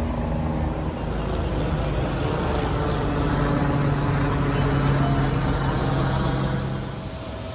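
An engine running with a steady low hum, growing louder through the middle and dropping away about seven seconds in.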